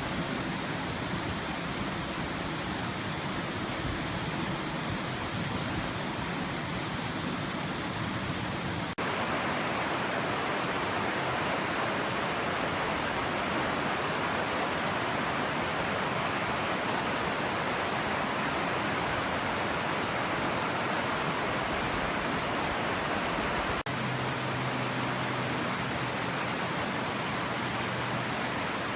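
Rushing water of a mountain trout stream, a steady even rush. It abruptly gets louder about nine seconds in and drops back a little near the end.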